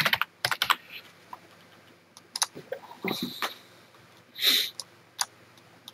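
Scattered sharp clicks from a computer mouse and keyboard, with a short sniff about four and a half seconds in.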